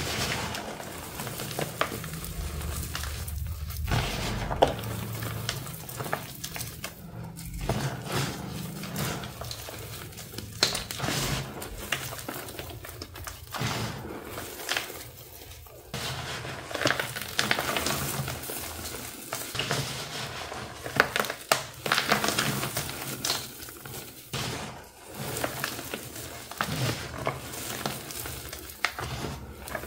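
Crushed dyed gym chalk, powder with small gritty lumps, crunching and crumbling as gloved hands squeeze and sift it in a plastic tub: a continuous gritty crackle with frequent sharp crunches.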